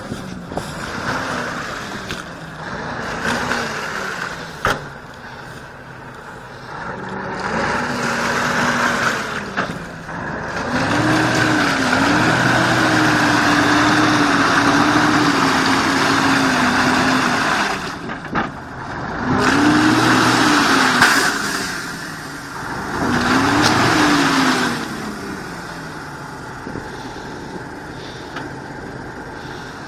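Heavy dump truck's diesel engine revving hard, rising and falling about five times with one long held pull in the middle, while the wheels spin and throw mud: the truck is stuck fast in deep mud.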